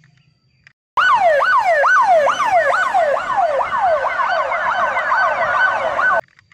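Police car siren sounding in repeated falling sweeps that quicken from about two to about four a second. It starts suddenly about a second in and cuts off near the end.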